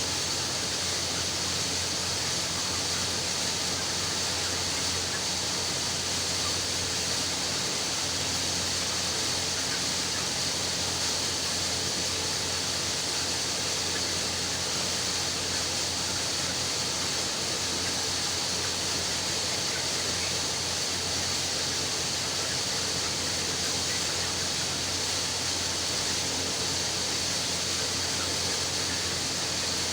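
Steady din inside a poultry house: a constant high hiss of many birds peeping together, over a low steady hum.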